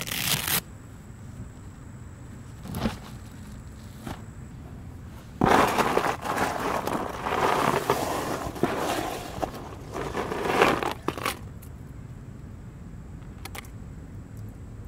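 Ice cubes crunching and scraping for several seconds as a large red drum is pushed down into a soft cooler packed with ice. A short rasp comes right at the start.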